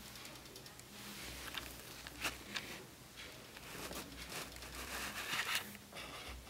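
Scattered light rustles and sharp clicks from a young chinchilla moving about its wire cage on wood-shaving bedding and hay.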